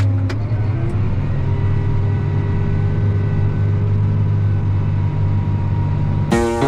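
Farm tractor engine running steadily under load while pulling a ripper through a field, a constant low drone with a slight rise in pitch about a second in. Plucked-string music cuts in just before the end.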